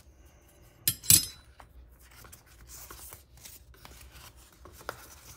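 Handling noise as the suppressor's spanner wrenches are worked out of their box: two quick sharp noises close together about a second in, then light rubbing and small knocks.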